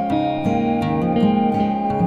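Background music: gentle plucked acoustic guitar, a new note or chord about every third of a second, over sustained tones.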